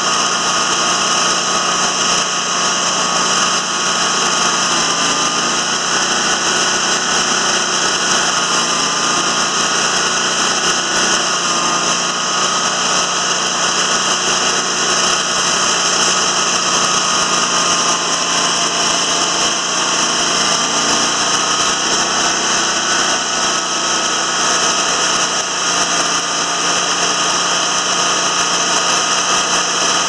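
Timberking 2000 band sawmill running steadily, its engine and band blade giving a constant mechanical drone with a faint wavering whine.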